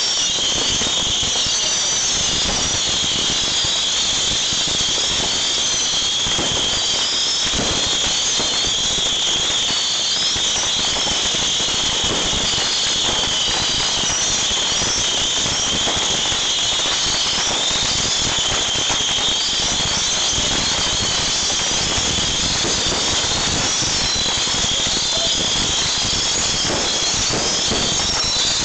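A barrage of bottle rockets firing without pause: a dense, steady screech of many overlapping high whistles that glide up and down, over constant crackling pops.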